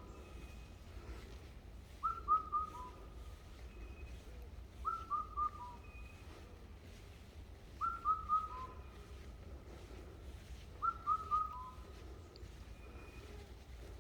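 A bird in mountain woodland repeating a short whistled phrase about every three seconds: three quick notes sliding slightly downward, then a single lower note. Four phrases in all, over a faint low rumble.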